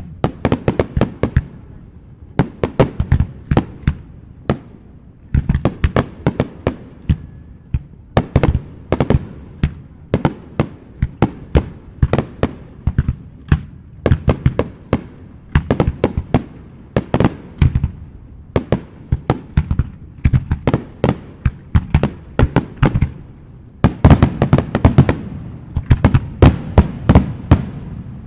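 Aerial Niagara fireworks display: shells bursting in rapid, irregular volleys of sharp bangs, dozens of reports overlapping, growing louder and denser near the end.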